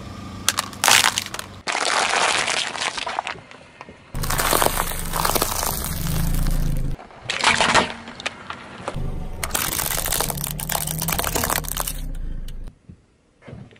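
A car tyre rolling over and crushing brittle objects, including a phone and a plastic toy gun, in several short separate takes. Each take holds cracking, crunching and snapping, and some have a low rumble of the car beneath.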